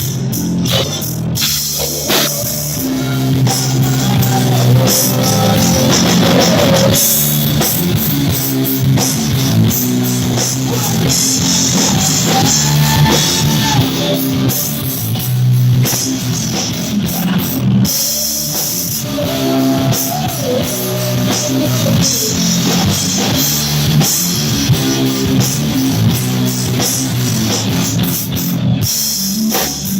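A rock band playing with drums and electric guitar, recorded loud and dense, with cymbals running through it.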